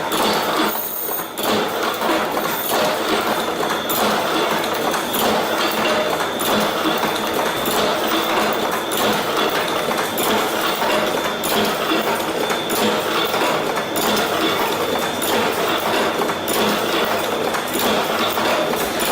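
Steady mechanical clatter and hiss from industrial machinery, with faint knocks every second or two and a thin high whine.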